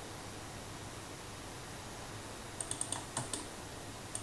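Computer keyboard keys clicking in two quick runs of four or five clicks, a little past halfway through, over a faint steady hum.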